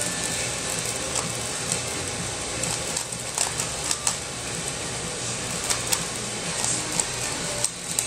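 Rubik's cube turned quickly by hand, its plastic layers clicking and rattling in quick irregular snaps, over steady background noise.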